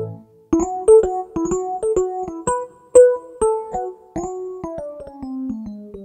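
Electric piano tones from the Roland GR-20 guitar synthesizer's 'E.P/Bass' preset, played from a Godin MIDI guitar. After a brief pause, a quick run of single notes starts about half a second in, and the phrase steps down in pitch over the last two seconds.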